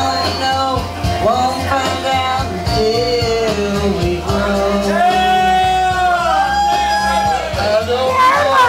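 Karaoke: a backing track playing through the PA while a singer sings into a microphone, with a long held note about halfway through.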